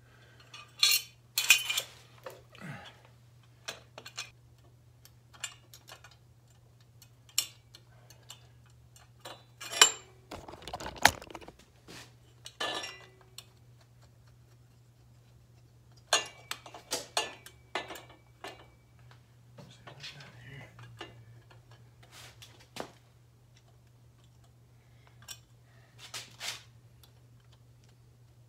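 Metal exhaust pipes and hardware clinking and clanking as they are handled and test-fitted on a motorcycle: scattered sharp knocks with pauses between, the loudest a cluster of clanks about ten seconds in. A steady low hum runs underneath.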